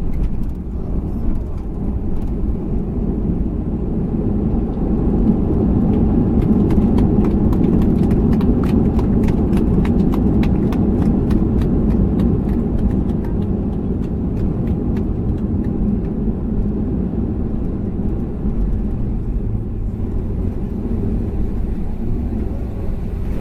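Steady low rumble of cabin noise aboard a Boeing 737-300, a little louder through the middle. Many small clicks and rattles come in a cluster from about five to fourteen seconds in.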